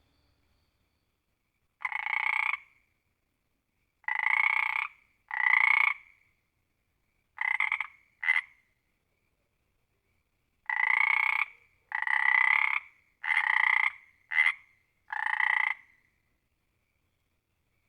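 Frog croaking: about ten separate croaks, most just under a second long with two very short ones among them, in uneven groups with silent gaps between.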